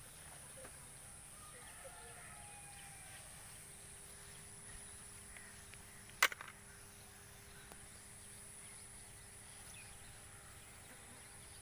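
Quiet outdoor background with faint bird calls, broken once by a single sharp click about six seconds in.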